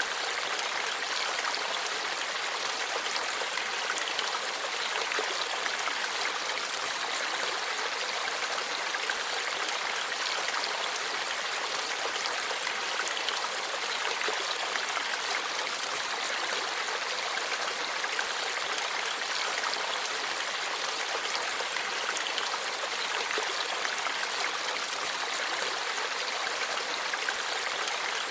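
Forest stream flowing steadily over rocks: an even, continuous rush of water with a light trickle, unchanging throughout.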